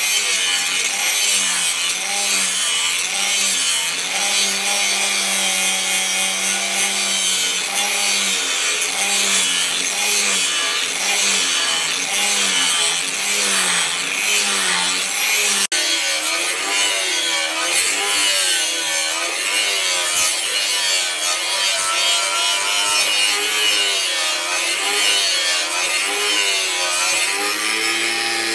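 Handheld electric angle grinder with an abrasive disc grinding a leaf-spring steel machete blade: a loud, steady hissing grind over a motor whine that dips and recovers over and over as the disc bites into the steel.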